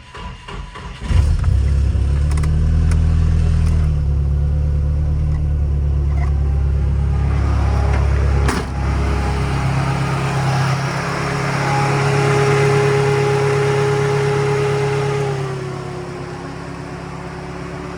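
Nissan Navara's turbo engine starting about a second in and then idling steadily. There is a sharp click about eight seconds in, and the idle settles lower and quieter near the end.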